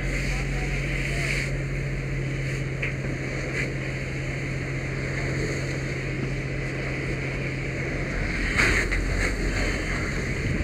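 Steady rushing noise of water spraying from a fire hose stream. A low steady hum runs beneath it and drops out about eight seconds in, followed by a few sharp knocks.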